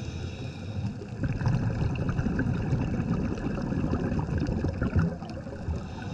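Muffled underwater rumble of a scuba diver's exhaled bubbles, heard through the camera's dive housing. It swells about a second in and eases again near the end.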